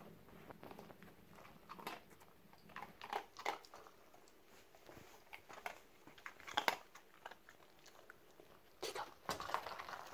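Dog biting and chewing at a rubber treat-dispensing toy to get the treats out: irregular crunching and clicking chews, the loudest about two-thirds of the way in, with a denser run near the end.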